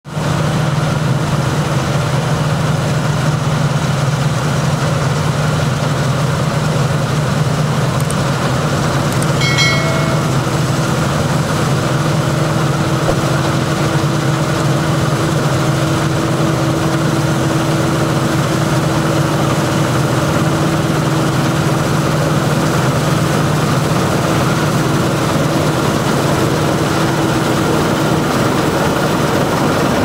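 Claas Tucano 420 combine harvester running steadily while cutting and threshing wheat, a constant low engine and machinery drone. A brief high chirp sounds about nine to ten seconds in.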